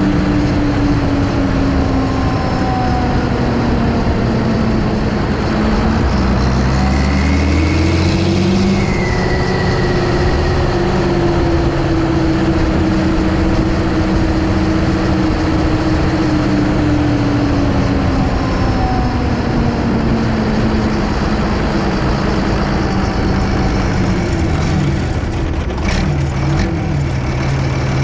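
Ursus 1224 Turbo tractor's six-cylinder turbo-diesel engine running under way, heard from the cab. Engine speed sags early, climbs about a quarter of the way in and holds, then falls off again toward the end, where a few sharp knocks sound.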